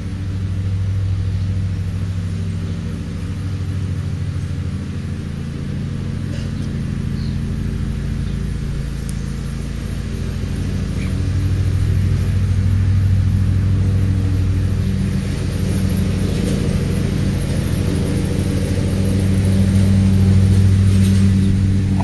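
A steady, low engine hum with an even drone. It grows louder about halfway through and again near the end.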